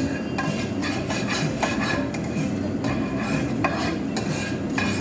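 Dishes and cutlery being handled and scrubbed: steady rubbing with frequent clinks and knocks.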